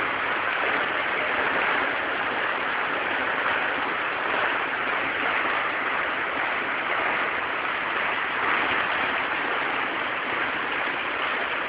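Heavy downpour of rain pelting onto paving and tiled terrace floors, a dense, even hiss that holds steady throughout.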